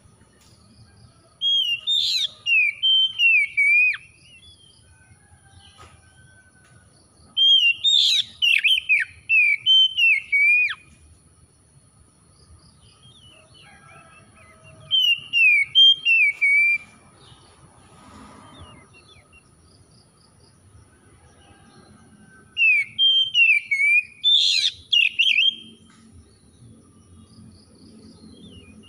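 Oriental magpie-robin singing: four loud phrases of rapid whistled notes, each a few seconds long, with the notes stepping down in pitch and quiet gaps between the phrases.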